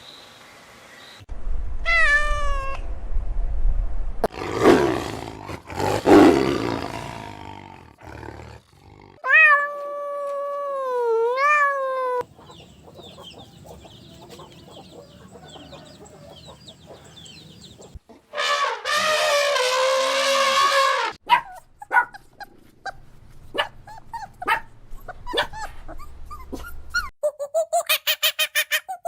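A succession of short, separate animal calls: pitched meow-like cries, a big-cat roar and other calls. Near the end comes a run of rapid dog barks, about five a second.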